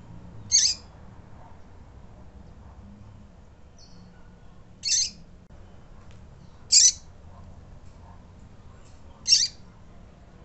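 Female double-collared seedeater (coleiro) calling: four short, high-pitched single call notes a few seconds apart.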